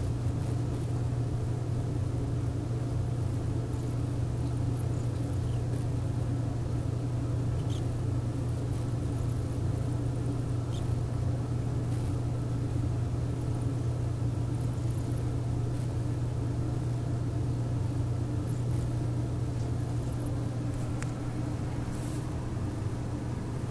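A steady low machine hum, with a few faint high ticks scattered over it.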